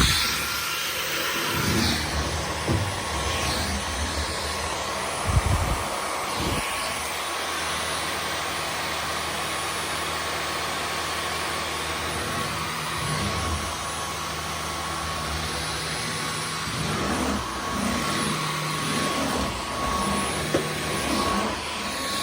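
Dyson V15 Detect Absolute cordless stick vacuum running steadily, with a steady high whine over its airflow noise. A few short knocks, the loudest about five seconds in.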